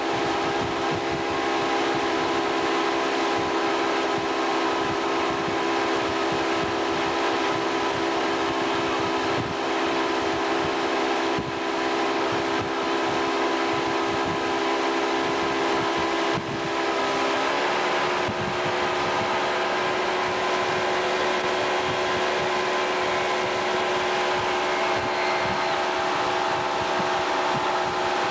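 Motorboat engine running steadily at towing speed, a constant drone over a rush of wind and water noise; its tone shifts about two-thirds of the way through.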